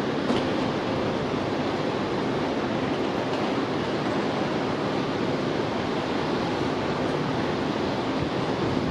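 Jet engine noise from an Airbus A320-232 with IAE V2500 turbofans as it lands: a steady, even rush with no distinct tones.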